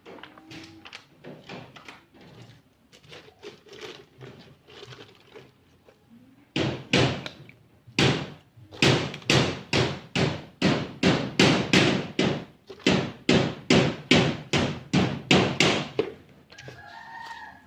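Soft scattered knocks, then, about six and a half seconds in, a regular run of loud thuds at about two a second, each sharp at the start and dying away quickly.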